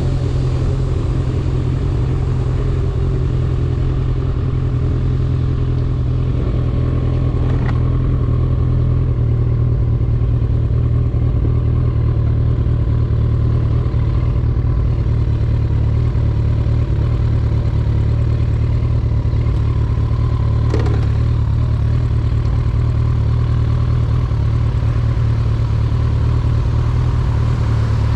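2012 Kawasaki ZX-14R's inline-four engine running at steady revs through a Two Brothers Black Series exhaust tuned with a Juice Box, a deep, even drone with little change in pitch.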